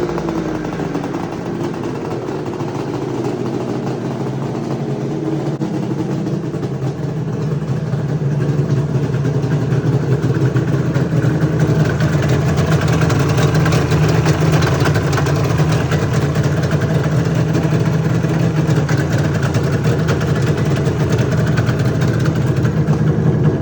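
1996 Arctic Cat ZRT 600 snowmobile's three-cylinder two-stroke engine running at a steady idle after a long time in storage, getting somewhat louder about eight seconds in.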